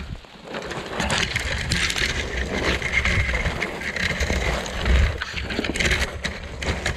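Dead leaves and brush crackling and rustling as someone pushes on foot through dense bramble undergrowth, with a steady low rumble of microphone buffeting.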